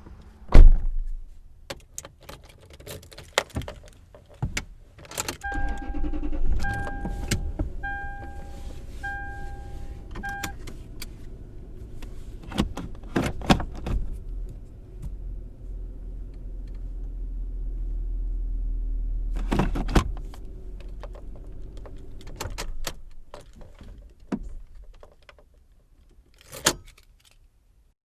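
Inside a car: keys jangling and sharp clicks, then the engine starts about five seconds in and runs with a low hum while a dashboard warning chime beeps five times, about a second apart. The engine swells, stops about twenty seconds in, and a few more clicks follow.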